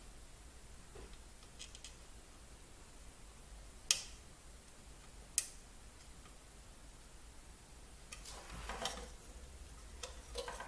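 Handling noise from hand desoldering on a ZX81 circuit board: two sharp clicks about a second and a half apart, then a longer scraping rustle near the end as the board and soldering iron are moved.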